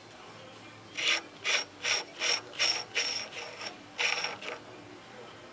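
Ratchet wrench working a fastener on a car's front wheel hub: about eight short ratcheting strokes, roughly three a second, starting about a second in and stopping shortly before the end.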